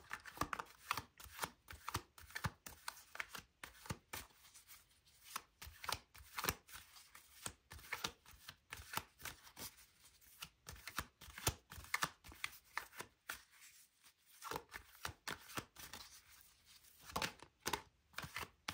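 Tarot cards being shuffled by hand: a run of quick, irregular card slaps and clicks, several a second, with a couple of short pauses.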